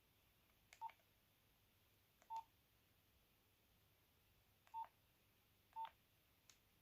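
Nokia 8210 keypad being pressed: four faint button presses at uneven intervals, each a small click with a short single-pitched key beep, and a last click without a beep near the end.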